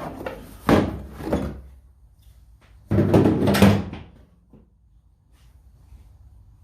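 A hard plastic tool case being handled: a sharp plastic clack, then a longer clatter about three seconds in, like a lid or latches being worked.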